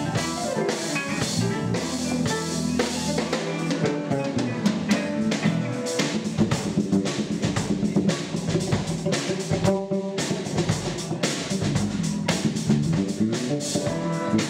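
A live band playing: drum kit with snare and bass drum, electric bass and electric guitars.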